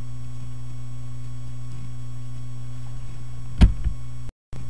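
Steady low electrical hum on the recording, with one sharp thump about three and a half seconds in and a brief dropout to dead silence just after it.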